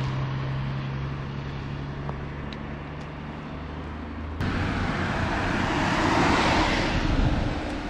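A vehicle engine idles with a steady low hum. After a sudden cut, a car passes on the road, and the rush of its tyres swells to its loudest about two-thirds of the way through before easing.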